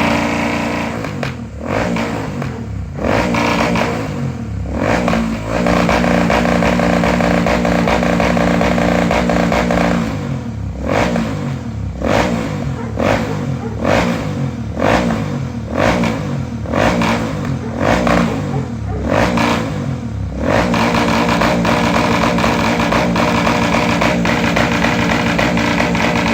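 Royal Enfield Super Meteor 650's parallel-twin engine being revved: a few throttle blips, then held at raised revs for several seconds. A run of quick blips follows at about one a second, and near the end it is held at raised revs again.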